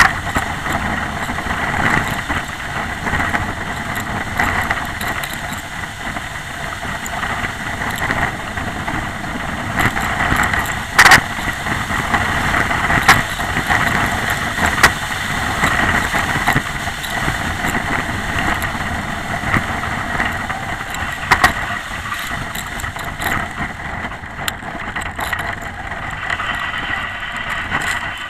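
Bobsleigh running down an ice track at speed: a loud, steady rush and rattle of the runners on the ice. Sharp knocks come as the sled jolts, the loudest about eleven seconds in.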